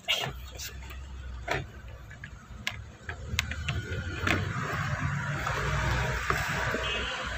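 Toyota Vios handbrake lever being worked by hand, its ratchet giving a few separate clicks, with a rustle of handling noise in the second half, as the newly fitted handbrake cable is checked.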